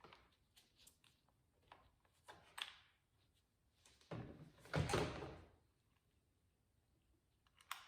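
Faint clicks and handling of plastic parts as the lock cables are popped out of an old car door lock actuator, with one louder scraping rustle about four to five seconds in.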